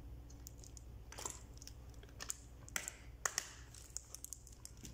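Faint, scattered clicks and crackles of a plastic water bottle being drunk from and handled, its cap being worked.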